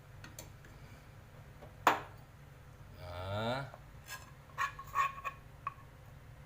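A sharp knock about two seconds in, then a quick run of light ringing clinks against a glass as the heated ginger and palm-sugar syrup is scraped from the pan into the glass.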